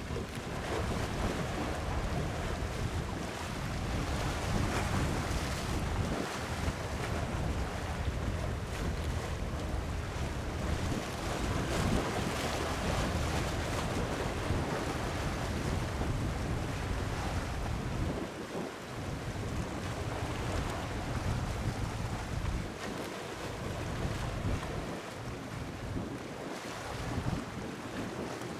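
Wind buffeting the microphone in gusts over the steady wash of sea waves; the low rumble of the wind eases off a few times.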